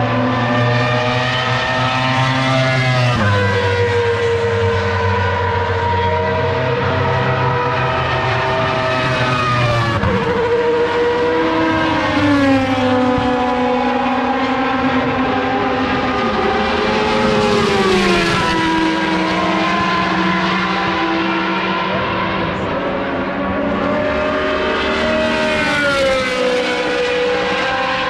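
Several racing-car engines running together at the circuit, their pitches holding steady and then gliding down every several seconds.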